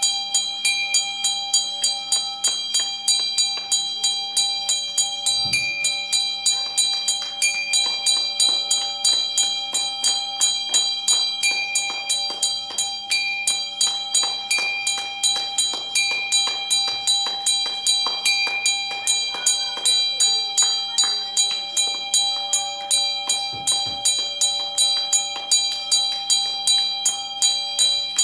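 A metal hand bell rung steadily and quickly, about three strokes a second, its ringing tones carrying on without a break.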